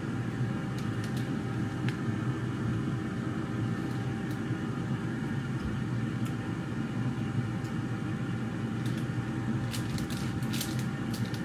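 Air fryer running with a steady fan hum, a few light clicks near the end.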